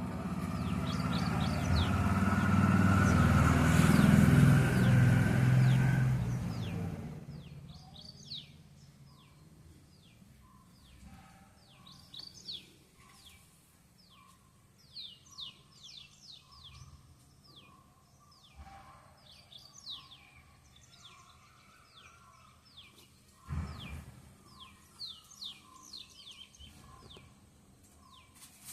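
Small birds chirping repeatedly with short, high, falling chirps. During the first several seconds a passing vehicle rumbles loudly, swelling and fading away. There is a single knock about 23 seconds in.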